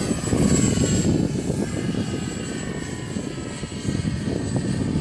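Hotz 3D radio-controlled model airplane flying overhead, its motor and propeller giving a steady high whine that shifts slightly in pitch, over a low rumble of wind on the microphone.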